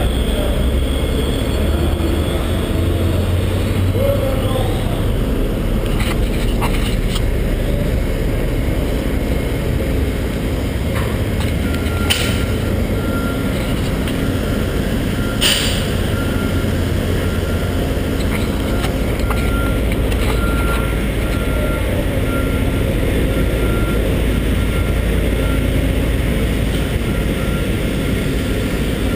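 A vehicle's reversing alarm beeping at a steady pitch, starting about a third of the way in, over a loud, steady low engine rumble from dock machinery. A few sharp knocks stand out, two of them near the middle.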